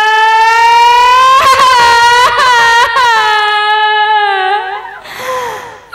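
A woman's loud, high-pitched wailing cry into a stage microphone: one long held note that bends slightly and fades out about five seconds in, followed by a short breathy hiss. It is a staged weeping lament, acted out as part of the song's story.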